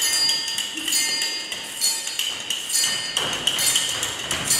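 Improvised playing on small hand percussion instruments: irregular metallic taps and clinks, with a high ringing that hangs on between strokes.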